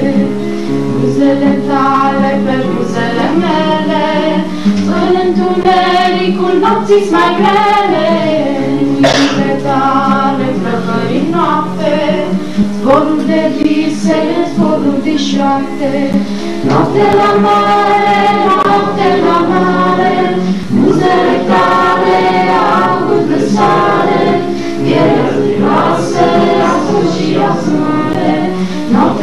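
A group of men and women singing a Romanian mountain song together, accompanied by a strummed acoustic guitar.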